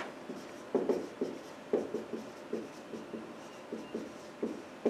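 Marker pen writing on a whiteboard: a string of short, irregular strokes and taps as letters are drawn.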